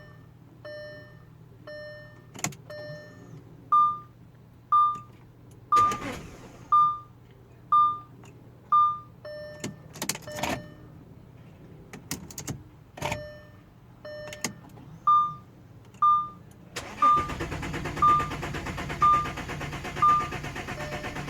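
Inside a 2008 Audi Q7 3.6 with the ignition on: a steady low hum, a few clicks and a warning chime beeping about once a second. About 17 seconds in, the starter begins cranking the 3.6 VR6 engine steadily without it catching: a crank-no-start, which the owner puts down to no fuel reaching the engine.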